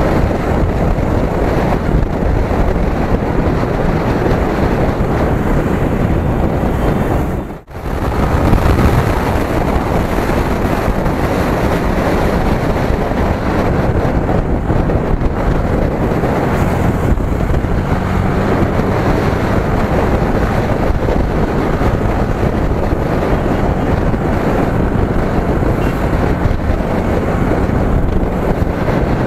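Wind rushing over the camera microphone on a Yamaha sport motorcycle moving at speed, cruising in fifth gear at about 70 km/h, with the engine's steady note underneath. The sound drops out for a split second about eight seconds in.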